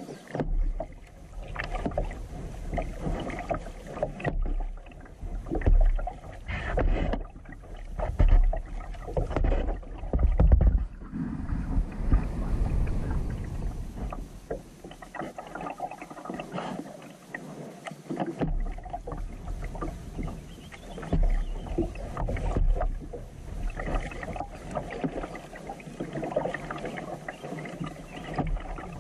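Kayak paddle strokes in calm water, a stroke about every second or two, with a steady low rumble underneath.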